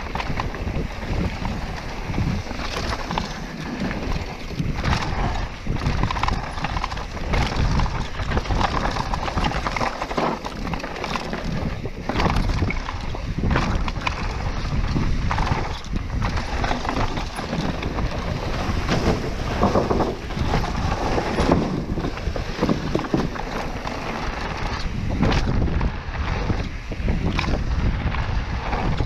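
Mountain bike riding fast down a dirt bike-park trail: tyre noise on dirt and the bike rattling and knocking over bumps, with wind buffeting the microphone.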